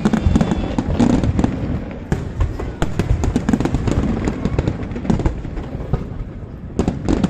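Fireworks display: aerial shells bursting in quick succession, a dense run of sharp bangs and crackles many times a second over a continuous low rumble, easing a little late on and then picking up again.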